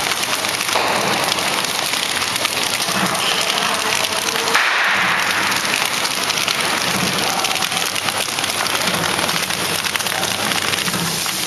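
Horizontal flow-wrap bread packing machine running: steady, noisy mechanical sound with a low pulse recurring about once a second and a brief louder burst about four and a half seconds in.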